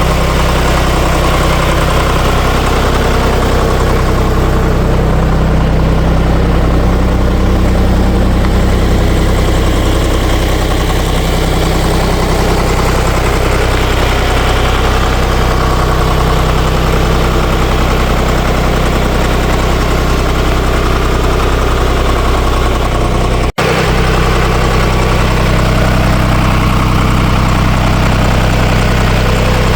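Air-cooled three-cylinder Deutz diesel engine of a Ditch Witch trencher-backhoe idling steadily. Its sound drops out for a split second about two-thirds of the way through.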